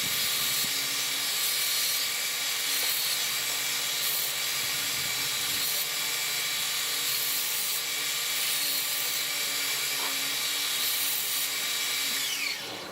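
Electric sander running steadily as a cedar box's curved corner is sanded smooth; it shuts off near the end.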